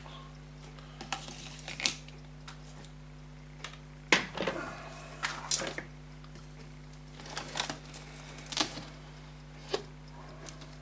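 Tools and small objects on a workbench being picked up, shifted and set down: a scattered series of clicks, knocks and short rattles over a steady low electrical hum.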